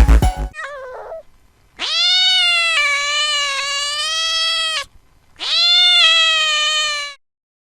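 A domestic cat meowing three times: a short, falling meow, then two long, drawn-out meows, the first about three seconds long and the second a little shorter.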